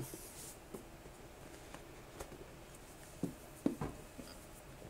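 Faint handling of plastic keyboard accessory parts: scattered light clicks and knocks, a few more about three and a half seconds in, as a piece that won't open is worked at by hand.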